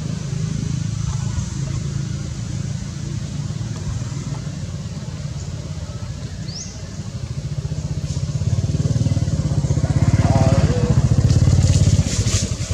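An engine running steadily with an even low pulse, getting louder from about eight seconds in. A brief high chirp comes about six seconds in.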